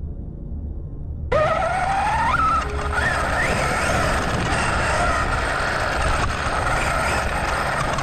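After about a second of low rumble, the Losi DBXL's brushless electric motor (TP Power 5850, 990 kV) and drivetrain cut in with a whine that rises in pitch as the buggy accelerates. The whine then holds high, with short rises as the throttle is worked. Under it is a steady noise of tyres on loose dirt and gravel, heard from the onboard camera.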